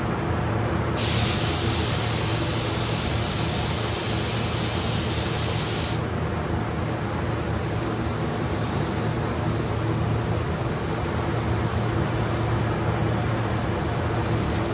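Paint spray gun spraying clear coat: a loud air hiss starts about a second in and cuts off sharply about five seconds later as the trigger is released, with a fainter hiss after. A steady hum of the paint booth's ventilation runs underneath.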